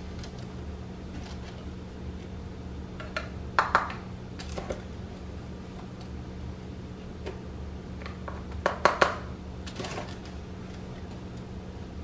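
A plastic measuring cup scooping dry waffle mix from a cardboard box: short rustles and scrapes, one burst a few seconds in and a cluster about nine seconds in, over a steady low hum.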